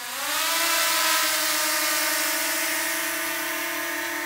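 Small DJI quadcopter drone's propellers whining overhead as it flies and hovers. The pitch dips briefly at the start, then rises and holds steady, getting louder over the first half second.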